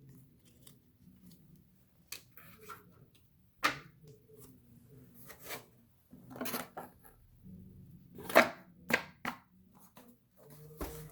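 Trading cards being handled and flipped through by hand: scattered sharp clicks and short swishes of card sliding over card, the sharpest a little over eight seconds in.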